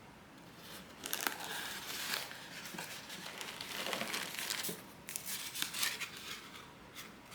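Packaging being handled and opened by hand: an irregular crinkling and rustling of the box's inner packing, with a few light clicks and knocks.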